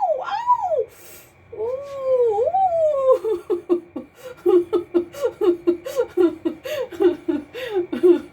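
Parakeet calling: a few arching, whining calls, then a long wavering call, then a rapid run of short laugh-like notes about three a second.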